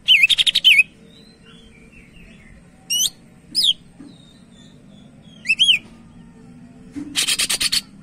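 A caged cucak ijo (green leafbird) singing in loud bursts. It opens with a fast run of rapid notes, gives two looping whistled notes about three seconds in and a short double note a little later, and ends with a fast, harsh rattling series.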